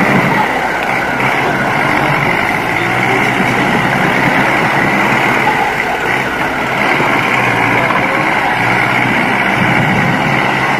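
Forestry tractor's engine running steadily under load as it pushes its wheels through deep mud, with a steady high whine over the low engine note.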